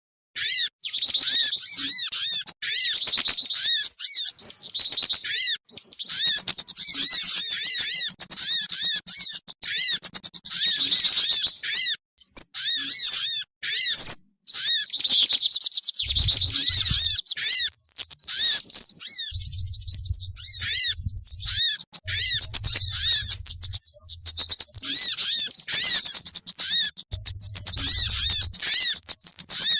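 Bird-lure recording of several small songbirds calling at once: dense, overlapping high-pitched chirps, twitters and quick trills that keep going with only brief gaps.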